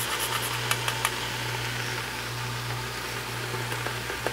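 Diced vegetables sizzling faintly as they sauté in an Instant Pot, over a steady low hum, with a couple of light scrapes from a fine rasp grater grating nutmeg about a second in.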